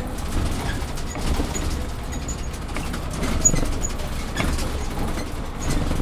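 City bus running, a steady low rumble of engine and road noise heard from inside the bus, with a few light knocks.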